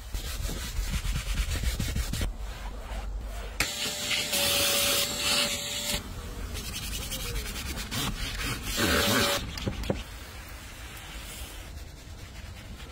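Rapid, dense scrubbing and rubbing on car interior trim during detailing. About four seconds in, a loud hiss with a steady whistle-like tone runs for about two seconds, and a shorter one comes about nine seconds in.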